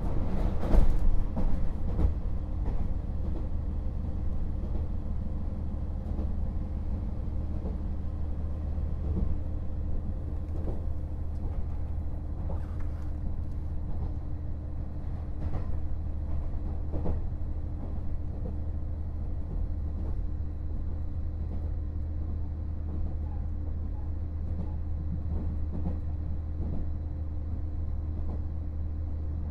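KiHa 48 500-series diesel railcar heard from on board: a steady low drone from its diesel engine and running gear, with scattered clicks and knocks, a few louder ones in the first two seconds.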